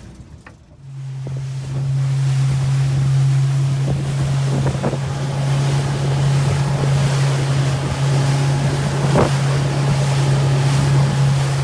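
Fishing boat's motor running at a steady speed, starting about a second in, as one even hum under the rush of wind and water, with wind buffeting the microphone.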